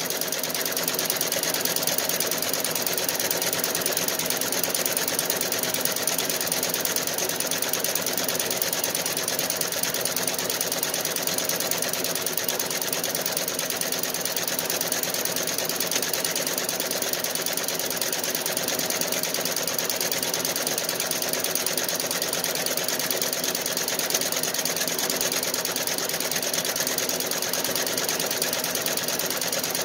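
Feiyue multi-needle embroidery machine running, stitching a patch with a steady, unbroken mechanical chatter.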